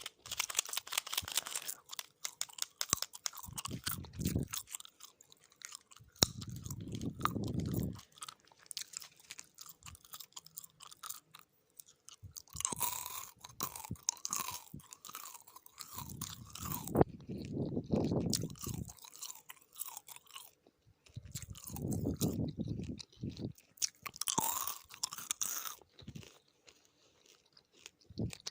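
Gum being chewed right at the microphone: irregular runs of sticky mouth clicks and smacks, broken by a few longer spells of low rushing noise.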